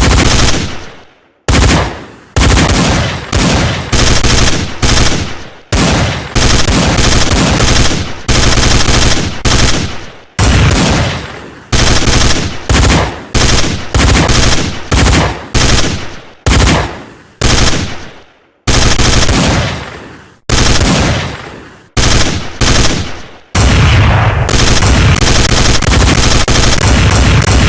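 Recorded machine-gun and gunfire sound effect: repeated loud bursts of fire that start abruptly and die away, separated by short gaps, running together into continuous firing near the end. It is used as the alert sound of a forex trend indicator.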